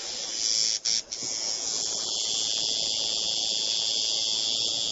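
Electric tattoo machine buzzing steadily as the needle works into skin. It cuts out twice briefly about a second in.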